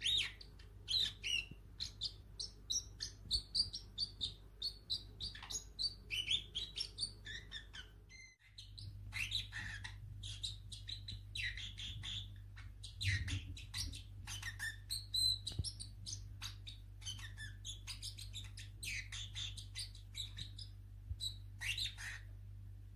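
A young Pacific parrotlet chirping in quick runs of short, high calls, with a wolf whistle at the start. It mimics speech in a small, squeaky voice, saying "You're my best friend" around the middle and "Pretty bird" near the end.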